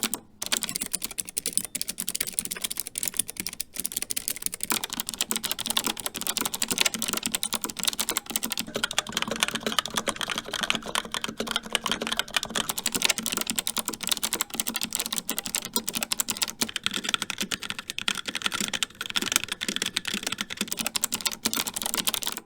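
Continuous fast typing on an MSI Vigor GK50 mechanical keyboard with Kailh White switches: a dense stream of key clicks and keystrokes.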